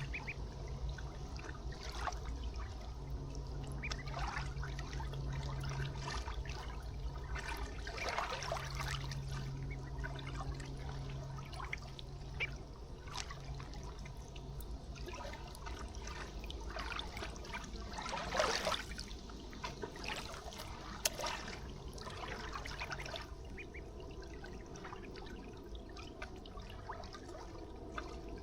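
River water trickling and lapping steadily, with a few short, louder sounds in the water, the biggest about two-thirds of the way through. A low hum comes and goes through the first half.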